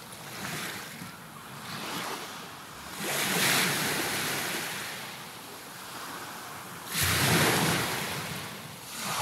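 Sea waves breaking: a steady rushing wash that surges twice, about three seconds in and again near the end, each surge fading slowly.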